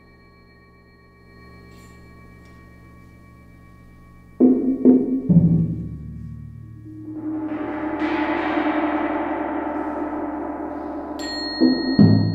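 Solo percussion: a few sharp tuned-drum strikes, then a large gong that swells up after being played and rings on with a shimmering wash, slowly fading. Near the end come a bright metallic strike and more drum hits.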